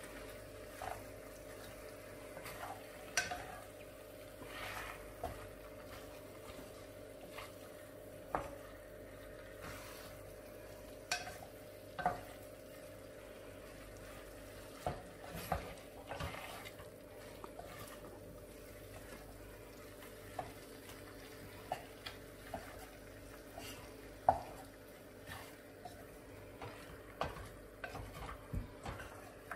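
Beef in spice paste being stirred in a hot stainless steel pot: scattered scrapes and clinks of the utensil against the pot, with a light sizzle from the meat. A steady low hum runs underneath.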